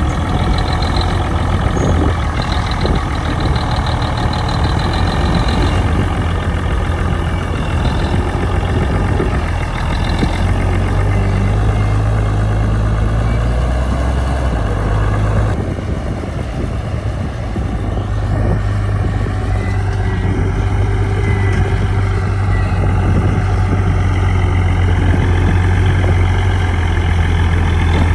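Bulldozer's heavy diesel engine running steadily with a low, loud drone. Its pitch shifts a few times, and the level dips briefly just past the middle.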